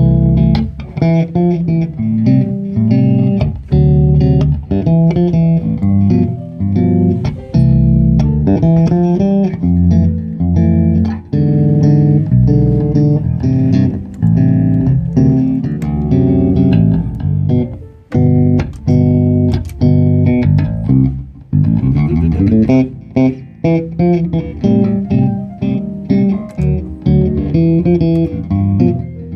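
Electric bass guitar played fingerstyle through an amplifier: a continuous run of plucked bass notes, with a quick rising slide up the neck about two-thirds of the way through.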